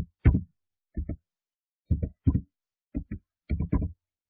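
Computer keyboard keys pressed one at a time as a short command is typed: about eight or nine separate dull key thuds, unevenly spaced.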